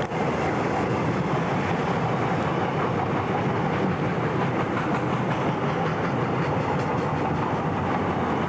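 Goods wagons of a passing freight train rolling by on the rails: a steady rumbling run, with faint clicks of wheels over rail joints in the later seconds.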